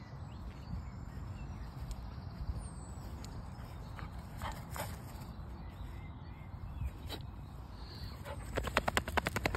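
Low steady rumble of wind and handling on a phone microphone, with a few soft clicks. Near the end, a black Labrador pants fast and loud close to the microphone, about ten short breaths in a second.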